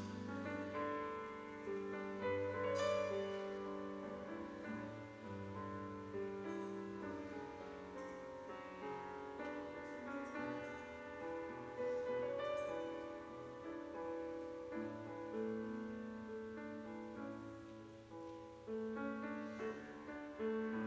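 Grand piano playing an instrumental piece of held chords and melody notes in a reverberant church.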